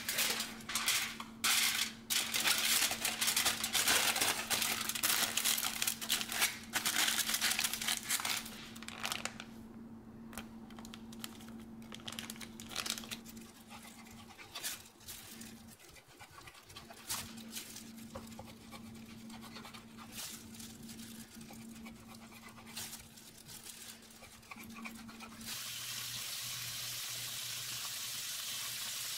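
Crisp crackling and crinkling of a crusty baguette being broken and handled. Then a knife cuts through a slab of bacon on a wooden board. About 25 seconds in, bacon pieces start sizzling in a frying pan with a steady hiss.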